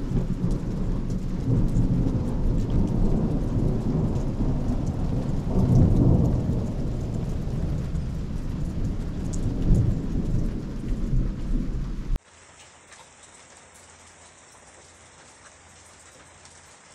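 Heavy rain with thunder rumbling for about twelve seconds, swelling twice. The sound then cuts off suddenly to a quieter, steady fall of rain.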